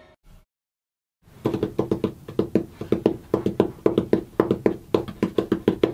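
Hands drumming on a hollow core door lying flat on a workbench: a quick, even run of knocks, about four or five a second, starting about a second in.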